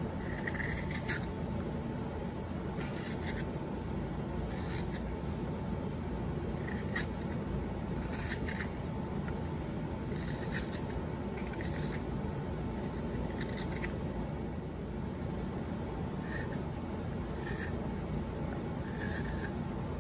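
A hand-held carving blade paring shavings from a pine spoon: about a dozen short scraping cuts, one every second or two, over steady background noise.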